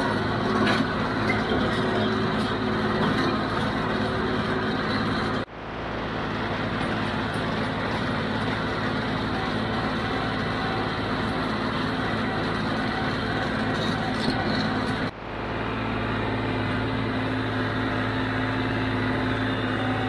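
John Deere 5055D tractor's three-cylinder diesel running steadily under load while it drives a John Deere 348 square baler with a pan kicker picking up hay, heard from the tractor. The sound drops out briefly twice, about five and fifteen seconds in.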